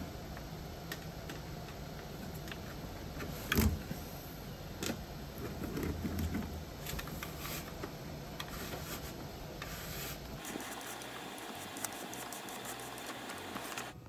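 Wire fish tape being fed out of its plastic reel and pushed up through a ceiling cavity, with irregular clicks and metallic rattles and a louder knock about three and a half seconds in.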